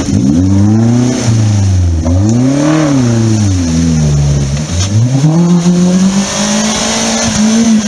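Suzuki Jimny's engine revving hard, its pitch climbing and falling three times and then held high near the end, as the mud-tyred wheels spin and claw through a muddy stream and up a bank, with water and mud splashing.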